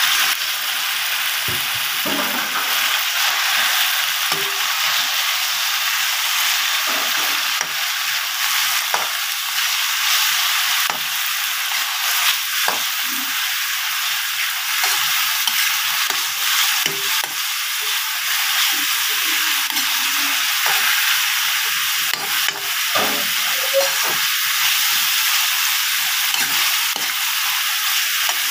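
Chicken pieces with garlic and onion sizzling in hot oil in a metal wok as they are stir-fried: a steady frying hiss with scattered scrapes and knocks of a metal spatula against the wok.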